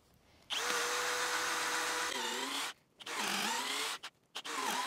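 Bosch GSB 185-LI 18 V cordless drill boring a 14 mm bit through a wooden board, in three runs. The first run is steady and drops in pitch near its end as the bit bites. The next two runs each slow under load and pick up again.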